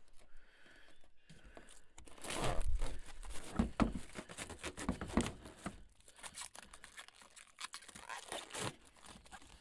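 Protective plastic wrapping being peeled and crinkled off a new headlight assembly, with irregular tearing and rustling that is loudest a few seconds in.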